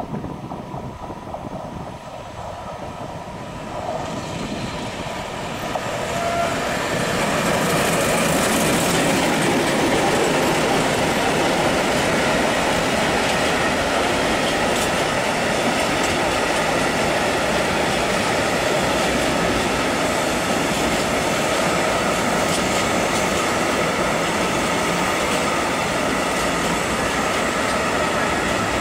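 Freight train of tank wagons hauled by a T448p diesel locomotive approaching and passing: the sound grows louder over the first several seconds as the locomotive comes by, then settles into a steady rolling rumble and clatter of the tank wagons' wheels on the rails.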